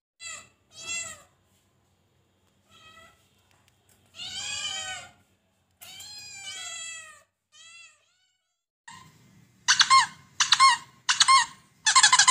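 Cats meowing: a few short high-pitched mews, then two longer drawn-out ones in the middle, then a fast run of louder mews toward the end, the last one long.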